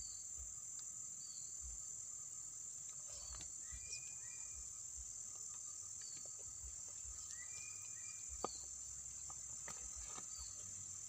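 Steady high-pitched insect chorus, with short chirps recurring every couple of seconds and a few faint clicks.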